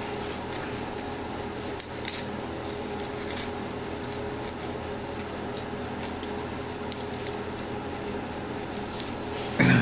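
Light handling noises from work on a car amplifier's heatsink: scattered small clicks and rubbing over a steady low hum.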